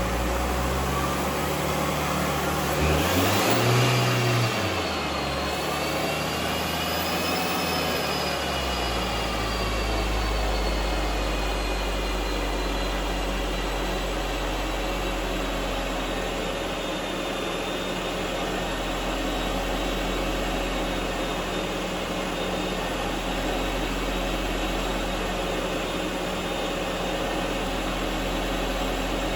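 Turbocharged Audi A3 2.0 TDI diesel engine on a rolling-road dyno: the engine and turbo whine climb to a loud peak about four seconds in. The whine then falls slowly away as the car runs down, over a steady low drone and whir.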